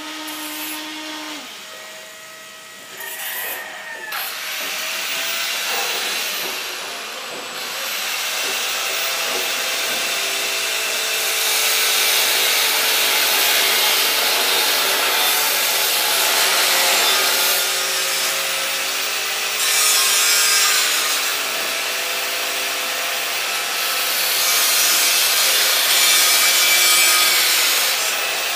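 Handheld power grinder working stainless steel: a continuous hissing scrape with a whine that steps up and down in pitch. It starts quieter and builds to a steady loud level over the first several seconds.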